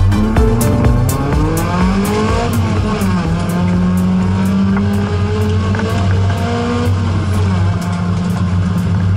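Honda CRX race car's engine heard from inside the cabin under hard driving: it climbs in pitch for the first two and a half seconds, drops sharply around three seconds in, then holds at a steady high note, with another small rise and drop near seven and a half seconds.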